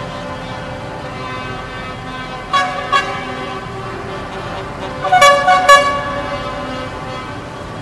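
Vehicle horns tooting: two short toots about two and a half seconds in, then a louder quick run of about four toots around five seconds in. Underneath is the steady drone of the convoy's engines.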